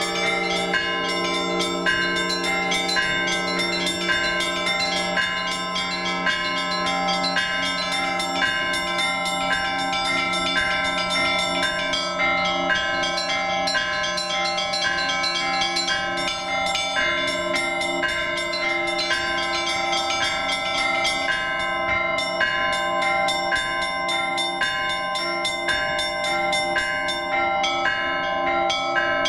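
Orthodox church bells ringing a trezvon: several bells sound together, small bells struck in a quick, even rhythm over the sustained hum of larger bells.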